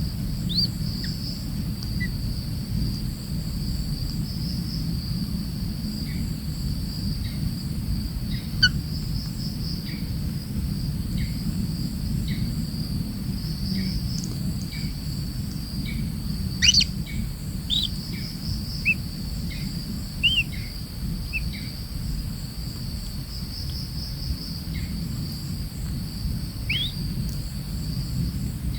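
Insects shrill steadily in one unbroken high note over a low rumble. Short bird chirps and rising or falling calls come scattered throughout, the sharpest about a third of the way in, just past halfway and near the end.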